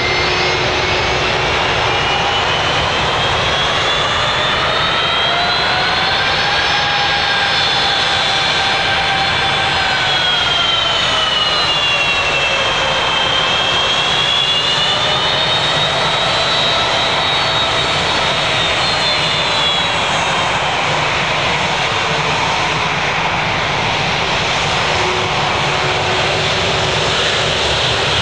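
Boeing 757's twin jet engines at taxi power as the airliner rolls past and turns toward the runway: a steady jet whine over a low rumble, its tones slowly rising and falling in pitch as the aircraft moves and turns.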